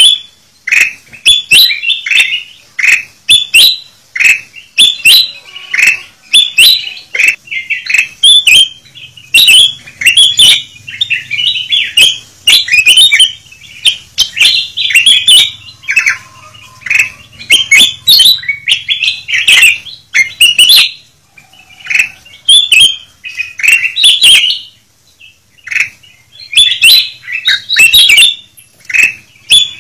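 Ruby-throated bulbuls (kutilang emas) calling noisily: a dense run of short, chirping calls, with a short pause about 25 seconds in. It is a lure-call recording of the kind played to draw wild kutilang emas in.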